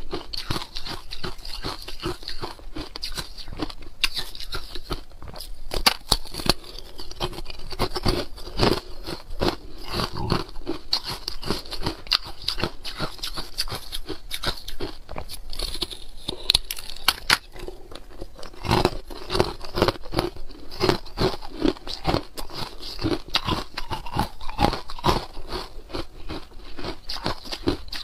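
Carbonated ice cubes bitten off a frozen cluster and crunched between the teeth close to a lapel microphone: a dense run of sharp cracks and crackles.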